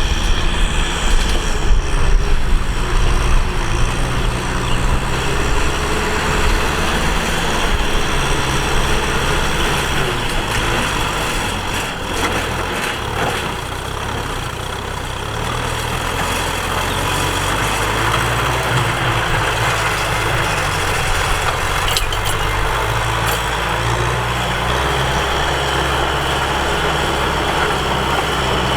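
Tractor engine running steadily under load while ploughing: a constant low engine drone with a wide hiss over it, easing slightly about halfway through and then picking up again.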